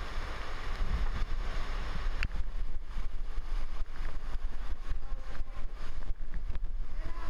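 Typhoon wind and heavy rain blowing hard, with wind buffeting the microphone. About two seconds in it gives way to storm-surge floodwater rushing and splashing, with a lower wind rumble beneath.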